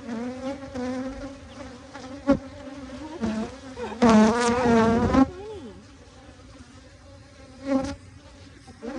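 Honeybees buzzing around an open hive in a steady hum, with one bee flying close past the microphone for about a second, about four seconds in, its loud buzz wavering in pitch. A short knock sounds a couple of seconds in.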